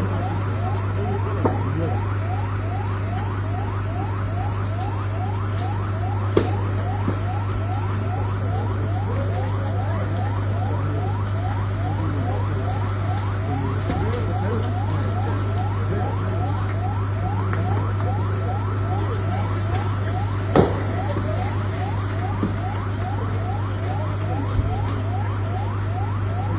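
Emergency-vehicle siren sounding continuously in a fast yelp, about three short falling sweeps a second, over a steady low hum. A few brief knocks break through, the loudest about twenty seconds in.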